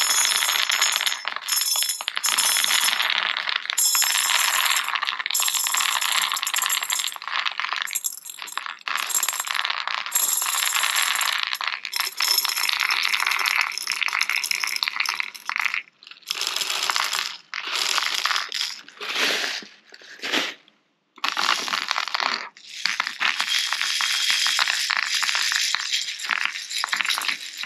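Airsoft BBs poured from a bag into a metal BB sizing tray, clattering steadily over the metal. Over the second half the sound comes in separate bursts of rattling, a second or two each, as the tray is shaken and the BBs roll over the holes and drop through.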